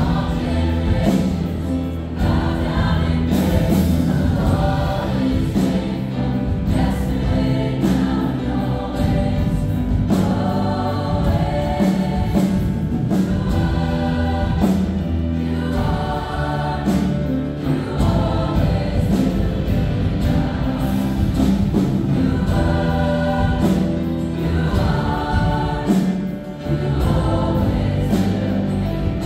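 Choir singing a gospel worship song over instrumental backing with steady sustained bass notes.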